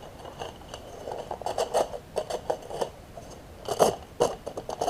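A product's packaging box being handled and turned over, with quick clusters of scrapes, taps and clicks; the loudest cluster comes near the end.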